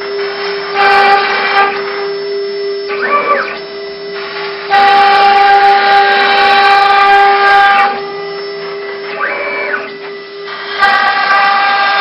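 6040 CNC router's 1.5 kW water-cooled spindle whining at a steady pitch while its end mill cuts a white plastic sheet. The cutting noise gets loud in stretches, longest from about five to eight seconds in. Twice, between cuts, a short whine rises and falls as the axes move.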